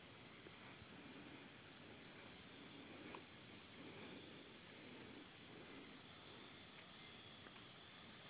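Insects chirping in the woods at nightfall: a steady high-pitched chorus, with one louder caller in short bursts repeating about every half second to second from about two seconds in.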